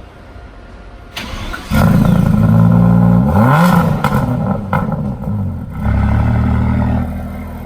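Car engine revving and accelerating hard. It comes in loud under two seconds in, climbs in pitch around the middle, briefly eases near six seconds, then falls back to a lower, steadier run near the end.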